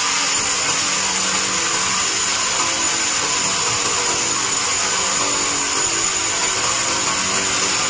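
Large band sawmill cutting lengthwise through a log as the carriage feeds it past the blade. A steady, high-pitched whine over a constant rushing noise, with no let-up.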